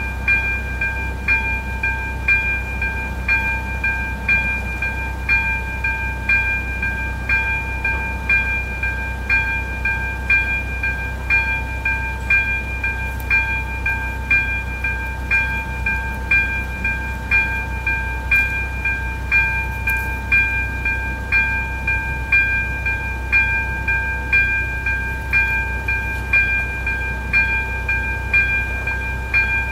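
Electronic level-crossing warning bell (AŽD ZV-02) striking about once a second, each stroke ringing on in a steady bell tone, sounding while the crossing is closed to warn of an approaching train.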